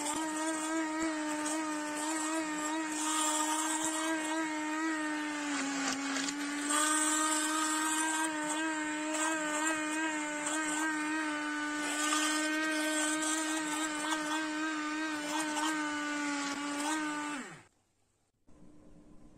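Electric immersion (stick) blender running in crêpe batter: a steady motor whine that sags briefly in pitch about six seconds in, then winds down and stops near the end.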